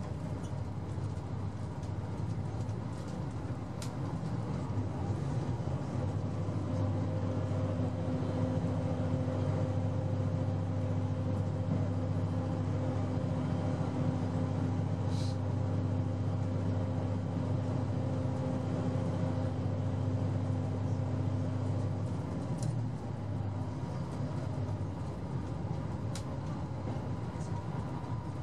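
Cabin noise inside a KiHa 189 series diesel express railcar running at about 115 km/h: a steady rumble of wheels on rail with a low engine drone that swells about six seconds in and drops away after about 22 seconds as the train eases to 112 km/h.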